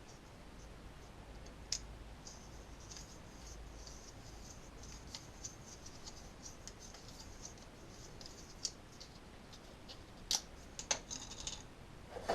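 Light scratching and scraping at a threaded metal pipe fitting as old PTFE tape is cleaned off the threads, with a few sharp clicks, and a quick run of louder clicks and knocks near the end as the parts are handled.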